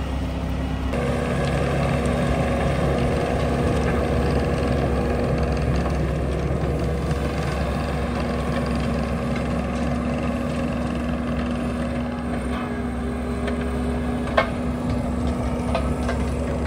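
Bobcat T870 compact track loader running steadily while working a Coneteks 2.13M grinder attachment, a constant engine and hydraulic hum. A single sharp knock stands out near the end.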